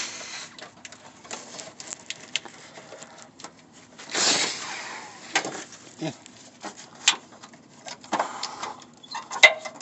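Scattered clicks, knocks and scraping as hands work a wiring harness plug loose above a car's fuel tank, with a longer rustling scrape about four seconds in.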